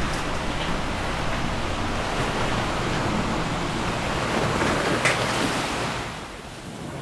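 A steady rushing noise, like surf, that eases off about six seconds in.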